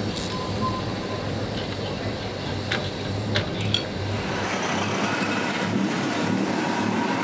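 Commercial kitchen noise: a steady hiss and hum from gas burners and a boiling pot, with a few sharp metal clinks of a wire strainer basket and chopstick against the steel pot in the first few seconds.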